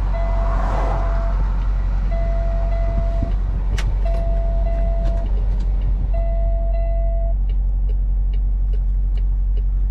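Warning chime in a Peterbilt semi-truck cab beeping four times, each tone about a second long and about two seconds apart, over a steady low hum in the cab. The chime sounds while the truck's automatic transmission is stuck and will not go into gear.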